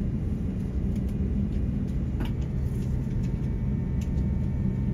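Steady low rumble of an Airbus A350-900's passenger cabin on the ground, the air conditioning and aircraft systems running, with a faint steady hum under it. A couple of faint clicks sound about two and four seconds in.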